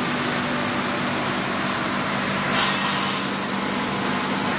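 Steady whir and hum of a running plastic pelletizing line's machinery, an even mechanical noise with a low steady hum beneath it.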